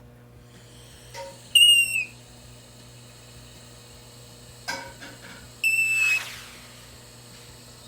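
Say's phoebe calling twice, about four seconds apart. Each call is a short whistled note that slurs slightly downward.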